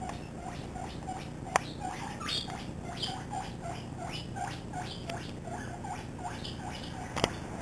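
Young guinea pig squeaking in a rhythmic run of short notes, about three to four a second, like a squeaky toy, the chatter of a cavy running about. Two sharp clicks stand out, about a second and a half in and near the end.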